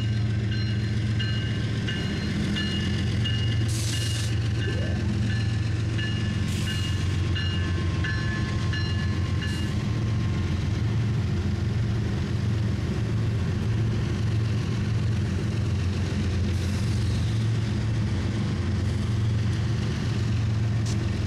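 Freight train with diesel locomotives running past: a steady low engine drone, with several thin high tones held through about the first ten seconds and two short bursts of hiss about four and seven seconds in.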